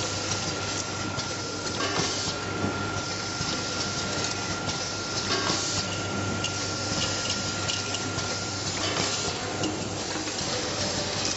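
Automatic screw-driving machine for plastic electrical boxes running: a steady low buzz under a constant high tone that stops about three-quarters of the way through, with repeated short bursts of air hiss and clicks from its pneumatic cylinders and indexing table.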